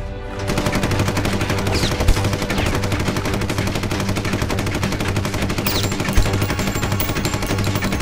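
Submachine gun firing one long, unbroken full-auto burst that starts about half a second in.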